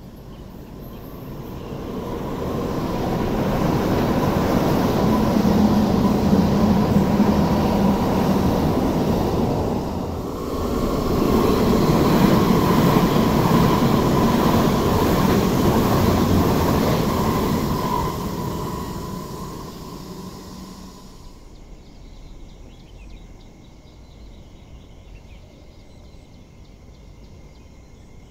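MTR West Rail Line SP1900 electric train running past at speed: a dense rumble of wheels on rail with a steady high whine. It swells, dips briefly about ten seconds in, swells again and fades away. About three quarters of the way through it cuts to a much quieter background.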